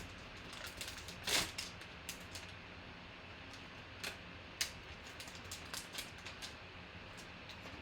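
Trading card pack being opened and its cards handled: scattered small clicks and rustles, with one louder, short rustle about a second and a half in.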